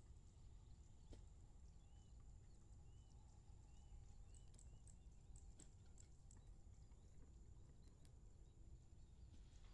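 Near silence: faint outdoor ambience with a low rumble and a few soft, short chirps repeated about every half second around the middle.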